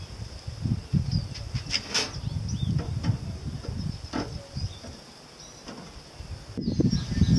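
Outdoor barbecue tending: a few sharp metallic clicks from a utensil against a barrel grill's grate and lid, over steady insect trilling and a gusty low rumble on the microphone that grows louder near the end.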